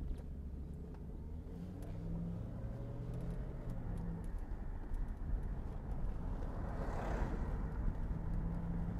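Jaguar XK8's V8 engine running and tyres rolling at low speed, heard from inside the cabin with a window open: a steady low rumble, with a brief rush of noise about seven seconds in.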